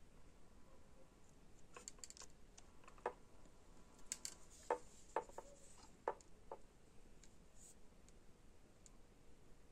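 Quiet room hiss with a scattering of about ten faint, sharp clicks and taps of handling, bunched between about two and six and a half seconds in.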